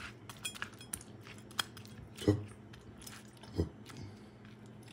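Kitchen knife slicing a cooked ribeye steak on a wooden cutting board: small clicks and scrapes of the blade through the seared crust, then a couple of duller knocks as the blade meets the board.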